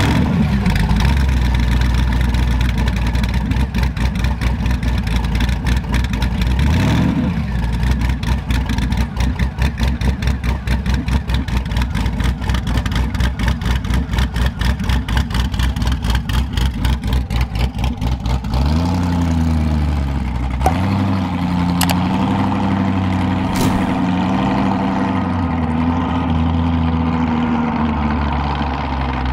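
A Boss Hoss motorcycle's V8 engine, just started, idling with an even lumpy pulse, with a short blip of the throttle about seven seconds in. About two thirds of the way through, the revs climb, dip and climb again, then hold higher.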